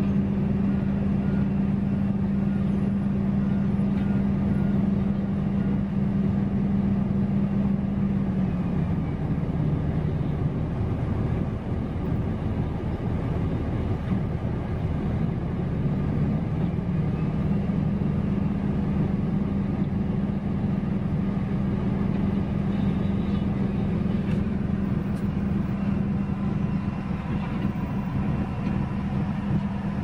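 Wirtgen cold milling machine working on the road surface: a steady diesel engine drone. Its pitch drops about a third of the way through and climbs back just past halfway.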